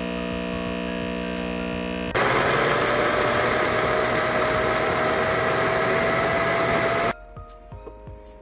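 Vacuum blender: a steady hum for about two seconds, then the blade motor starts with a loud rush, grinding soaked soybeans and water with a slowly rising whine for about five seconds before cutting off suddenly.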